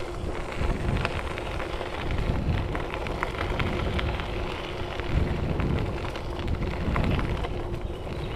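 Mountain bike tyres rolling fast over a gravel trail, with a steady crunch and crackle of grit under the tread, over a low wind rumble on the microphone.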